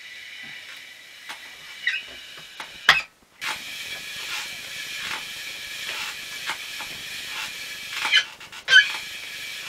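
Spinning-style indoor exercise bike pedalled hard for a sprint: its flywheel runs with a steady whirring hiss and a whine, pulsing about once every 0.7 s with the pedal strokes. A sharp knock about three seconds in, and a few short squeaks.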